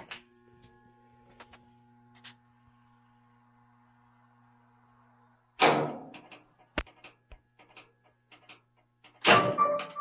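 Whirlpool Cabrio top-load washer trying to start: a faint steady hum, then a loud clunk about five and a half seconds in, a run of sharp clicks, and another clunk near the end as the machine shuts itself off. The uploader blames the shut-off on the washer's lid-lock fault, shown as the E2 F5 error code.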